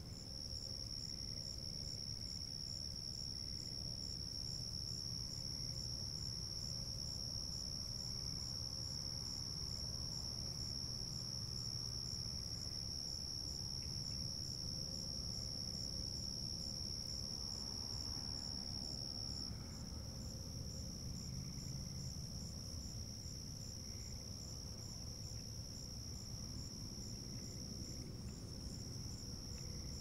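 Chorus of night insects such as crickets: a steady high-pitched trill, with a second insect's rapid, evenly spaced chirps pulsing just above it. The trill weakens slightly about two-thirds of the way through. A low, steady rumble sits underneath.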